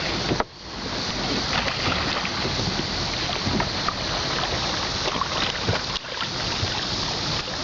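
Steady rushing wind noise on the microphone mixed with river water around the boat, briefly dropping out twice, with a few faint knocks.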